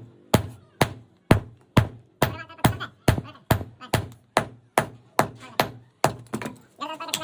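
Hammer blows struck in a steady rhythm, about two a second, each a sharp strike with a brief ring.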